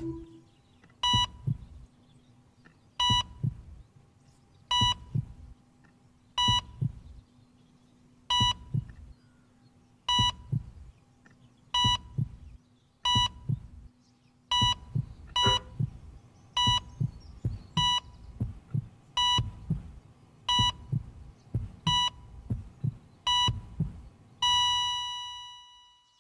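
Heart-monitor sound effect: a short beep with a double heartbeat thump, repeating about every second and a half to two seconds. Near the end it turns into one long flatline tone that fades out.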